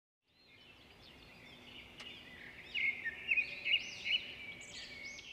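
Small songbirds chirping and calling, many quick high notes and short trills, fading in from silence and loudest about three to four seconds in.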